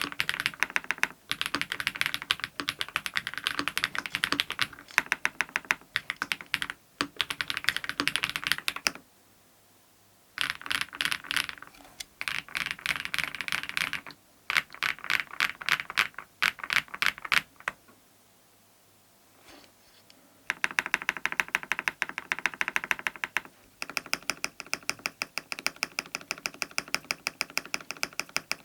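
Mechanical keyboard with lubed BSUN Raptor linear switches on a polycarbonate plate, with PBT doubleshot keycaps, being typed on quickly in bursts of rapid keystrokes. There are short pauses about nine, fourteen and eighteen seconds in.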